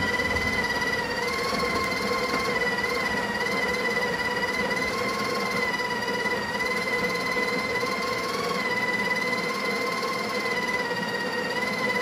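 The Breville Barista Express BES870XL's built-in conical burr grinder running, grinding coffee beans straight into the portafilter: a steady whine that wavers slightly in pitch now and then.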